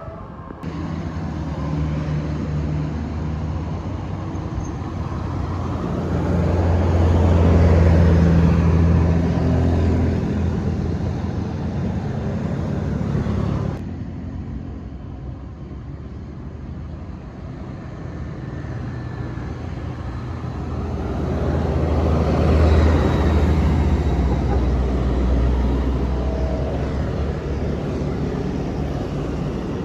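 Large buses driving past, each one's low diesel engine drone swelling as it nears and fading as it goes. The sound cuts off suddenly about halfway through, and a second bus then swells past.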